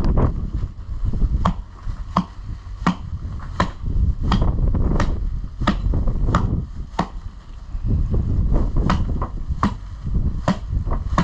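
Axe chopping into a cow carcass's rib cage to open the chest: a dozen or so sharp blows, about one every 0.7 seconds, with a break of about two seconds past the middle. A low wind rumble on the microphone runs underneath.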